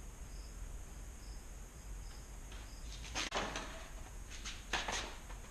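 A cricket chirping faintly in short, evenly spaced pulses, then two short bursts of rustling, a little past three seconds in and near the end, as packaging is pulled off a new bicycle.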